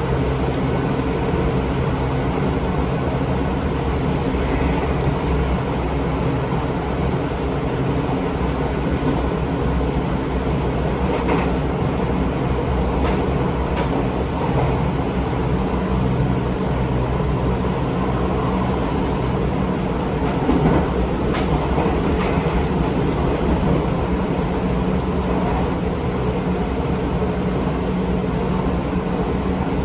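Seibu 20000 series electric train running at steady speed between stations: a continuous rumble of wheels on rail, a steady hum from the traction drive, and a few faint rail-joint clicks.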